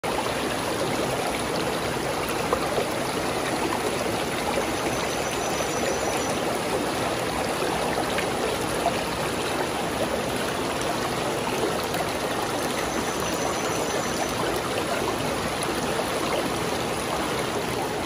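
Shallow rocky mountain stream running over stones: a steady rush of flowing water.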